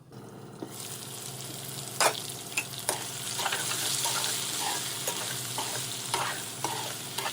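Brinjal pieces sizzling in hot oil in a pan while being stirred, with a few sharp scrapes and knocks of the spatula against the pan.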